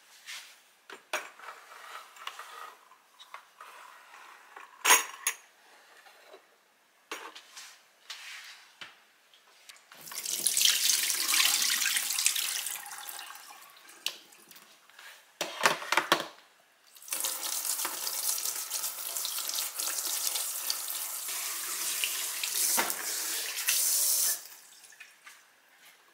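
Kitchen tap running into a stainless-steel sink as an espresso machine's metal drip tray is rinsed, in two runs: a few seconds about ten seconds in, then a longer one that cuts off suddenly near the end. Before and between them come scattered clicks and clatters of the metal tray being pulled out and handled, the sharpest about five seconds in.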